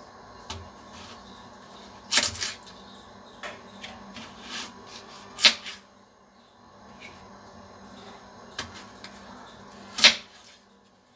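Kitchen knife cutting peeled raw potatoes on a wooden chopping board, the blade knocking sharply on the board several times, loudest about two, five and ten seconds in.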